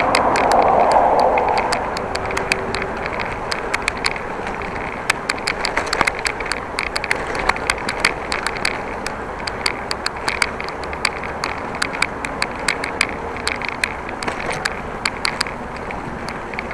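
Riding a bicycle: a steady rush of wind and tyre noise with many small, irregular clicks and rattles throughout. The rush swells louder in the first two seconds, then settles.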